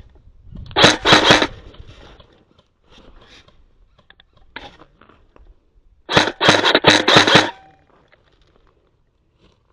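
Two bursts of rapid clacking from an airsoft rifle firing, about a second in and again about six seconds in, the second burst longer.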